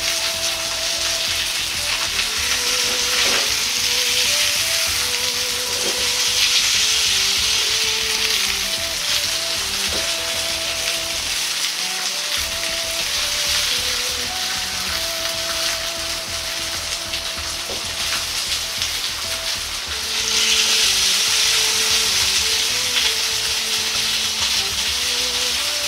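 Thin pork loin slices sizzling in oil in a Chinese wok over low heat, a steady frying hiss that grows louder about twenty seconds in. Background music with a melody plays underneath.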